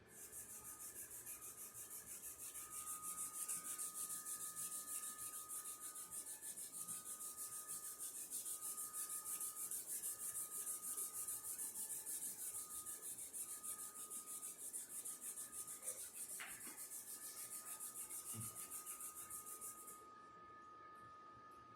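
Fast, even rubbing strokes making a hissy scrubbing sound, with a faint steady high tone underneath; the rubbing stops about 20 seconds in.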